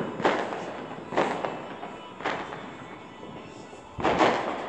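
Distant fireworks going off: about four sharp bangs in quick succession, each trailing off in a long echo, with the loudest coming near the end.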